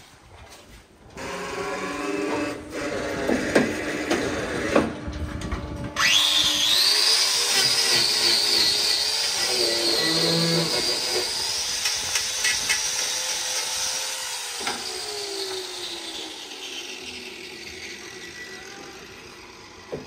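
Handheld hoof-trimming grinder starting up suddenly about six seconds in and running with a high whine as it cuts into a cow's hoof, dying away gradually over the last several seconds. Before it starts, a low steady hum and a few knocks.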